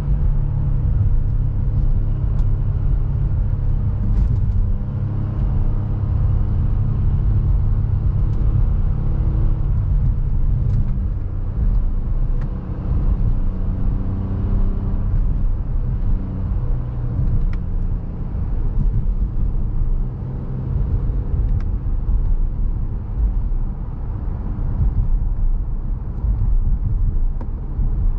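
Inside the cabin of a 2020 Honda Pilot with its 3.5-litre V6 on the highway: a steady low rumble of tyres and road with the engine's hum, as the car slows gradually.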